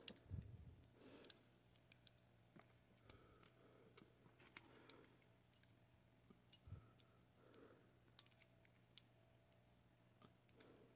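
Faint, scattered clicks and soft handling noises of the small metal parts of a butane stove's gas valve assembly being worked apart by hand.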